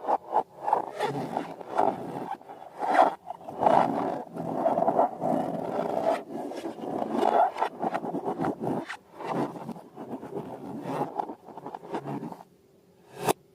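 Rubbery rubbing and scraping from balloons and slime being handled, in a long irregular run of strokes that stops shortly before the end, followed by one sharp click.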